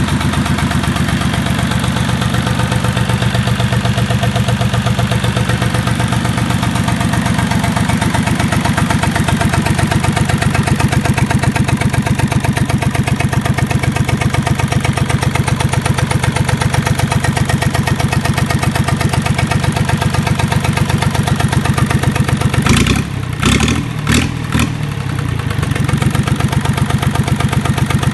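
Lister LPW3 three-cylinder marine diesel running steadily on a test stand, with a rapid, even beat of firing pulses. A few seconds of knocks and muffled dips about three quarters of the way through.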